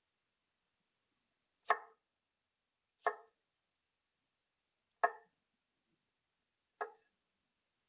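Chef's knife cutting small cucumbers into spears on a wooden cutting board: four separate knocks of the blade through the cucumber onto the board, a second or two apart.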